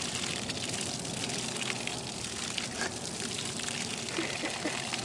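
Water streaming steadily from a garden hose and splashing onto grass.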